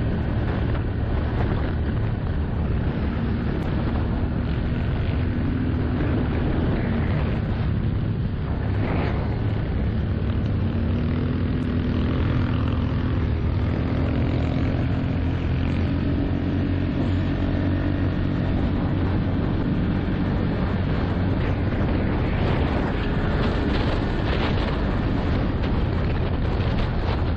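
ATV engine running under way on a gravel track, its note drifting up and down in pitch with the throttle, over tyre noise on loose gravel and wind on the microphone.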